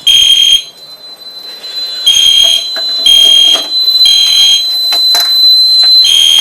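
Fire alarm horns sounding the temporal-3 evacuation pattern: three half-second blasts about a second apart, a pause of about a second and a half, then three more. A steady high tone carries on under the later blasts.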